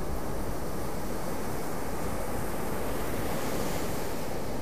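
Ocean surf breaking and washing up the beach, a steady rushing hiss that swells a little about three seconds in, with wind rumbling on the microphone.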